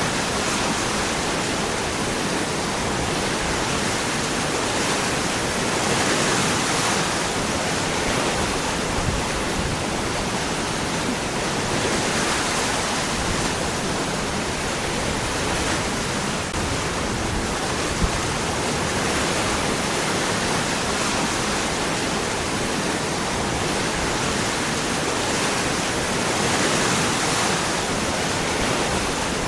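Waterfall pouring over rocks: a steady, full rush of falling water that swells gently now and then, with one brief click about eighteen seconds in.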